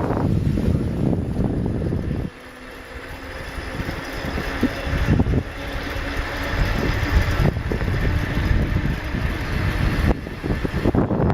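Wind buffeting the microphone while riding a bicycle. It drops off sharply about two seconds in and builds back up, with a few light clicks or rattles.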